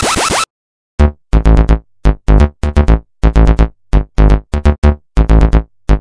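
A short burst of noise, then about a second in, electronic music begins: short choppy synth notes with heavy bass in a stuttering rhythm.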